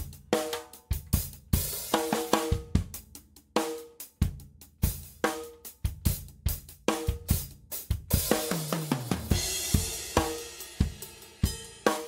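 Tama Starclassic birch drum kit played in a steady groove of kick, snare and hi-hat. About eight seconds in, a cymbal crash rings on while a run of drum hits falls in pitch down the toms.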